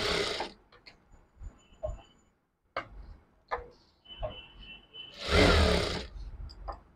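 Jack industrial sewing machine running in one short burst of stitching about five seconds in, after a few light clicks.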